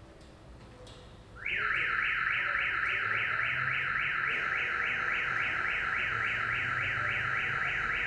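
Car alarm siren going off about a second and a half in, a loud electronic tone warbling rapidly at about three or four cycles a second and holding steady.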